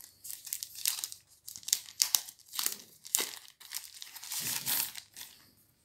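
A thin white wrapper crinkling and rustling as a power bank is worked out of it, in a run of irregular short bursts that die away near the end.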